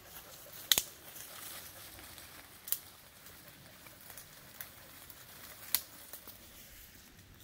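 Footsteps pushing through forest undergrowth, with leaves and brush rustling and four sharp twig snaps. The loudest snaps come about a second in and near six seconds in.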